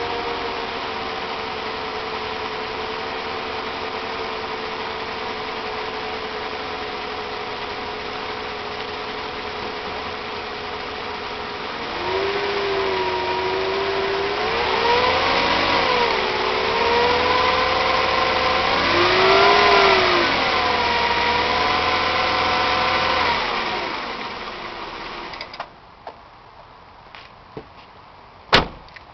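2000 Mercedes ML320 V6 idling, then held at raised revs with two brief climbs in pitch, before dropping back and shutting off about 25 seconds in. The engine is misfiring, which the owner traces to a major restriction in the driver's-side catalytic converter. A few small clicks and one sharp knock follow near the end.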